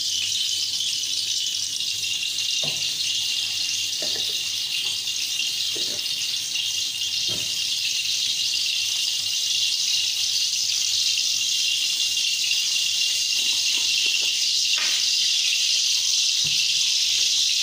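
A steady high hiss throughout, with a few faint light knocks now and then.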